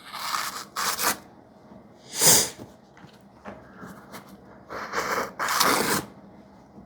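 A freshly sharpened knife, its 3V steel edge just stropped to a mirror polish, slicing through paper in about six quick swishes with short pauses between them, testing how sharp and effortless the edge is.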